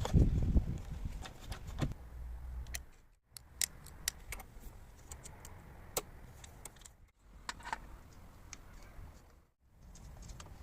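Light metallic clicks and taps of small parts and hand tools being handled during scooter restoration work. There are a few heavier knocks in the first two seconds and brief breaks in the sound about three, seven and nine and a half seconds in.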